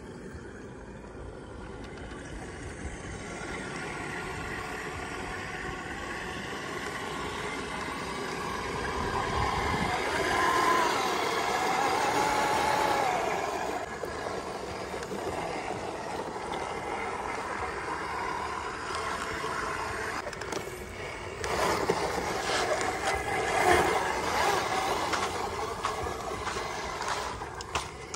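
Toy RC off-road car's electric motor whining, its pitch rising and falling as the car speeds up and slows. Splashing and the clatter of tyres on stones go with it as it drives through shallow water and over rocks.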